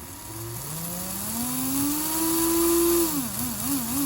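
Brushed electric motor driven by a generic 30A brushed ESC, its whine rising steadily in pitch as the throttle is opened to fast, holding high, then wavering up and down near the end as the throttle is worked back and forth.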